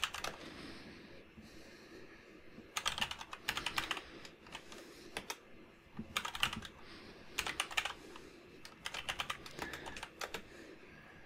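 Computer keyboard typing in short bursts of rapid keystrokes, with brief pauses between bursts.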